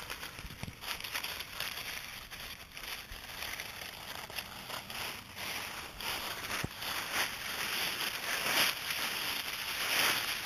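Dry fallen leaves crackling and rustling as Yorkshire terrier puppies and a person move through them: a steady run of small crunches, loudest near the end.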